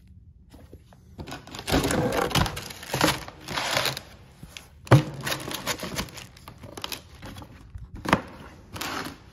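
Tissue paper crinkling and rustling as a pair of sneakers is handled and lifted in a cardboard shoebox, in irregular bursts, with a sharp knock just before five seconds in and a smaller one near eight seconds.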